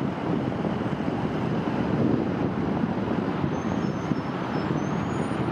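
Boeing 757 freighter's jet engines at climb thrust as it climbs away after takeoff, a steady low rumble.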